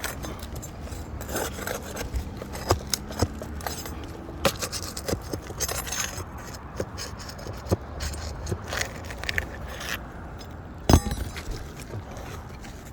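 Scraping, rubbing and irregular taps and knocks of hand roofing work on asphalt shingles, with one louder knock near the end.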